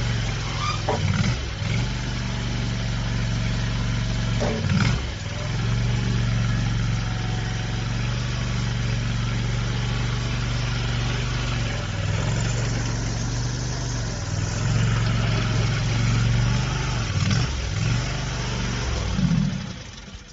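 Skid steer loader's engine running steadily under load, its pitch dipping and rising briefly several times, most often near the end.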